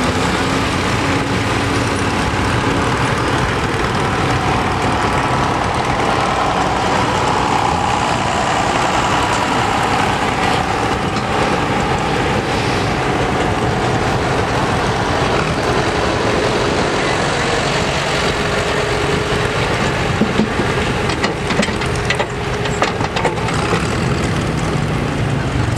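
Tractor engines running steadily on a pulling track, with a faint engine tone drifting up and down through the middle stretch.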